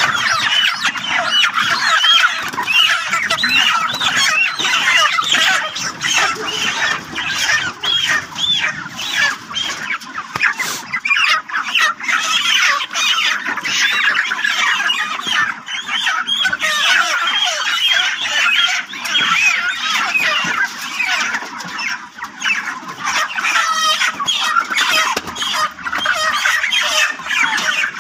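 A crowd of broiler chickens squawking and clucking, many short calls overlapping without a break, as the birds are caught and crated.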